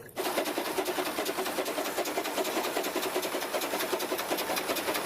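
Battery-powered toy train running: a small electric motor whirring with a rapid, even clicking of its gears. It switches on abruptly.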